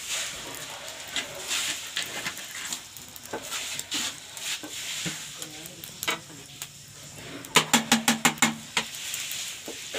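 Oil heating in a wok over a crackling wood fire, with a faint sizzle and scattered sharp pops. Near the end comes a quick run of about ten sharp clicks, the loudest sound.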